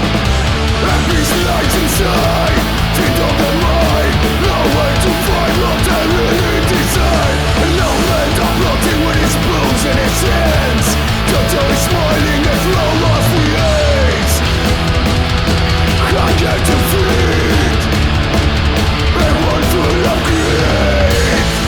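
Punk rock band recording playing loud and steady: distorted electric guitars over a bass line that moves between notes every few seconds, with drums and cymbals keeping a driving beat.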